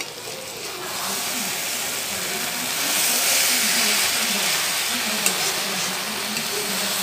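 Sliced mushrooms frying in masala in a kadai, sizzling as a metal spatula stirs and scrapes them around the pan. The sizzle swells about three seconds in, with a couple of sharp clicks of the spatula against the pan a little past the middle.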